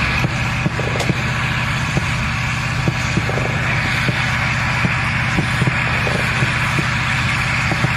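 Diesel engine of a Strela-10's MT-LB tracked chassis running steadily, a low even hum with faint intermittent clicks.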